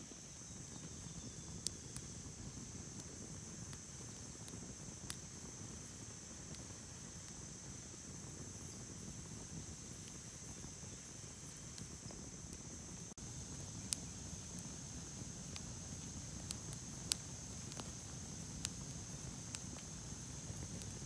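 Split-wood campfire crackling, with scattered sharp pops a few seconds apart, over a steady high-pitched drone of insects.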